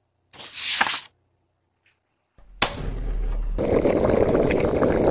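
A short swish sound effect about half a second in. After a low thud around two and a half seconds, a cartoon clay pot over a flame starts a steady bubbling simmer sound effect.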